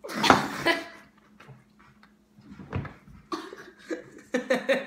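A boy gasping and gagging right after gulping down a chunky, foul mixed drink, then retching over a bowl in several short bursts, while another boy laughs.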